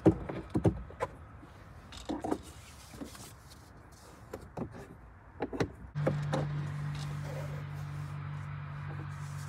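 Scattered clicks and light knocks of flat bungee cords being hooked onto an SUV's roof grab handles. About six seconds in, a steady low hum starts suddenly and keeps going.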